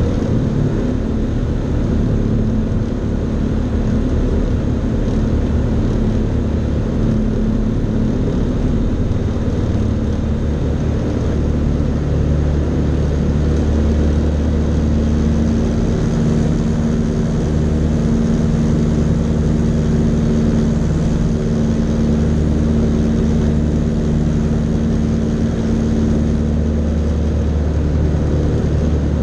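Fly Synthesis Storch S ultralight's engine and propeller droning steadily in cruise flight, heard from inside the cockpit.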